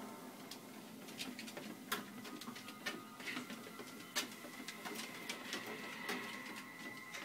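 DogTread dog treadmill running, with a small dog's claws clicking irregularly on the moving belt.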